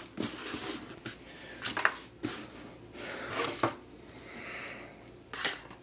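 Cardboard box being closed and set down on a wooden table, with items shifted around it: a handful of short knocks and light scrapes spread over a few seconds.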